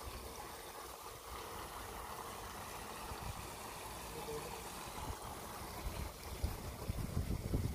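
Water flowing and trickling in a shallow rocky stream, a steady hiss. Wind buffets the microphone in low gusts near the end.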